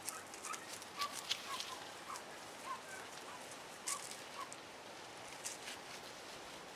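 A string of short, high chirping calls, about ten in four seconds, then stopping, with sharp crackles from footsteps through dry grass and brush on a field path.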